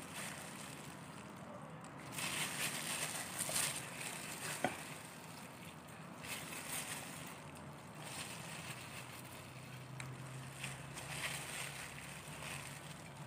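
Plastic-gloved hands rubbing marinade into a raw whole chicken: crinkly rustling of the disposable gloves and wet rubbing on the skin, coming in uneven bursts, with one sharp tap about four and a half seconds in.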